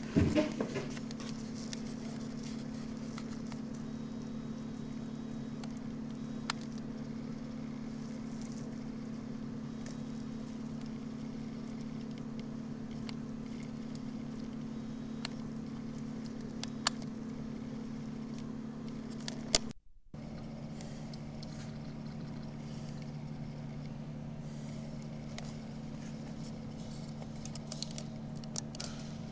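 Steady low hum with two low tones, broken by a knock at the start and a few sharp clicks; the sound cuts out for a moment a little after the middle.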